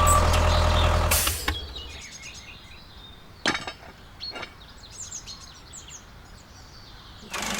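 A mini tractor's small engine running steadily, cutting off about a second and a half in. Then a quiet outdoor background follows, with birds chirping and a couple of faint clicks.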